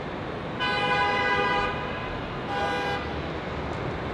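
A vehicle horn honking twice, a long honk of about a second and then a short one, over steady distant jet engine noise.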